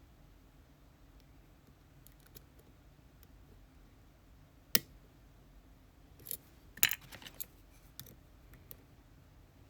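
Sharp little metal clicks and taps from an ASSA Twin Exclusive lock cylinder and lock tools being worked by hand: a single crisp click just before the midpoint, then a quick cluster of clicks about two seconds later.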